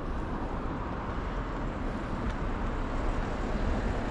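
Steady road traffic noise: cars passing along the street.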